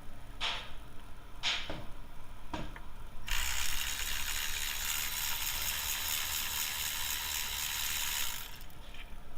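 Ratchet wrench working on the spark plugs of a 2008 Toyota 4Runner V6: three single strokes, then about five seconds of fast, continuous ratcheting that stops abruptly.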